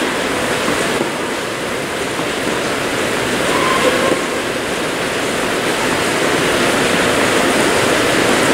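Steady, loud rushing noise with an even grainy texture.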